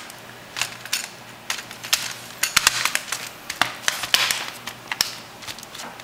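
Irregular run of sharp plastic clicks and snaps as the bottom cover panel of an MSI Wind U100 netbook is pressed and snapped back onto the case, with hands rubbing over the plastic.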